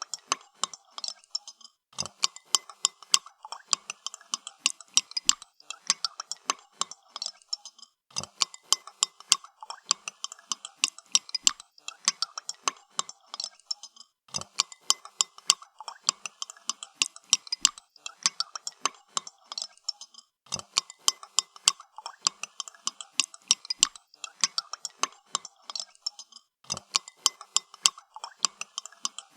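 A spoon stirring in a cup of coffee, clinking rapidly against the cup's sides in runs of about six seconds, each followed by a brief pause.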